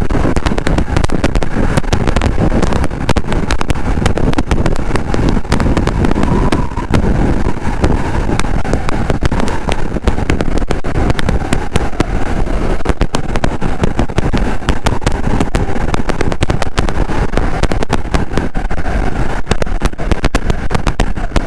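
Riding noise on a BMW F900R motorcycle: wind rushing and crackling on the helmet microphone over the parallel-twin engine running at road speed.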